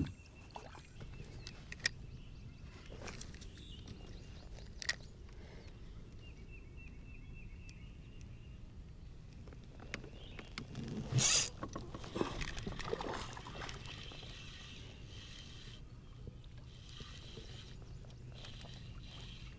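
Quiet gear handling in a fishing kayak: a few light clicks and knocks and a spinning reel being worked. One short, loud rush of noise comes about eleven seconds in.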